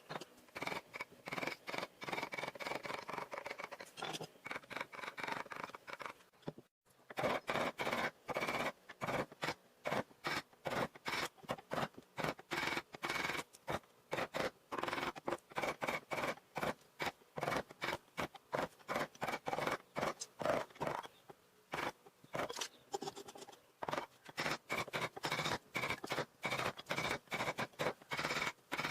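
A hand tool shaving and scraping wood in quick repeated strokes, about two or three a second, with a brief break about seven seconds in.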